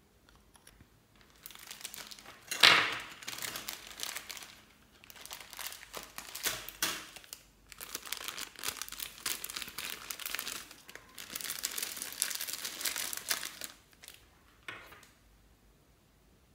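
Clear plastic zip bag crinkling and rustling in the hands as it is handled and tipped out, in several spells with short pauses, with one loud sharp rip about two and a half seconds in.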